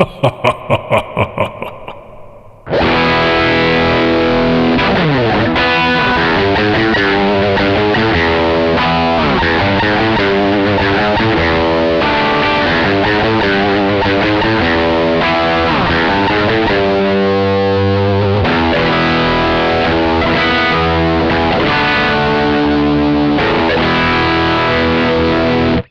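Electric guitar with Gibson Burstbucker pickups played through a 1987 Marshall Silver Jubilee 2555 amp, recorded direct through a speaker-simulator DI. It plays a distorted riff that starts about two and a half seconds in, after a short run of quick, even pulses, and cuts off suddenly at the end.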